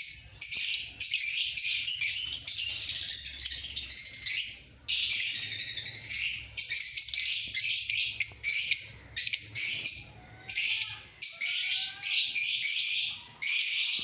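Caged lovebirds chattering: dense, shrill chirping in stretches broken by short pauses, with a few thin whistled notes about ten seconds in.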